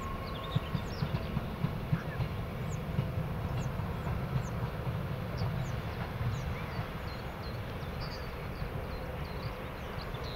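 ČD class 113 electric locomotive hauling a passenger train away around a curve: a low, steady rumble of the train on the track that eases slightly in the second half. Birds chirp throughout.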